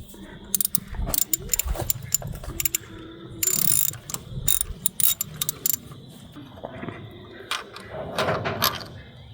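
Hand socket ratchet clicking in short quick runs, with scattered metallic knocks and a brief scraping hiss about three and a half seconds in.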